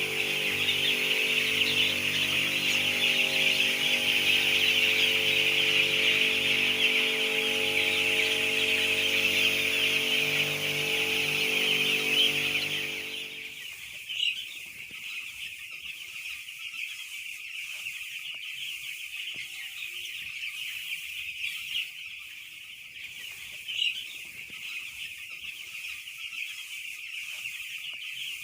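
A flock of young chicks peeping continuously, a dense high chorus with a few louder single calls. A steady machine hum runs underneath for the first half and stops about halfway through.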